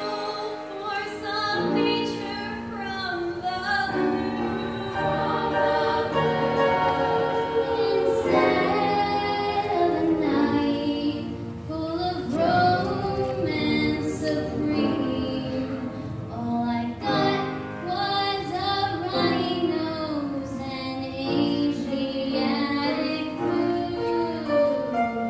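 Young women's choir singing, several voice parts held at once in harmony.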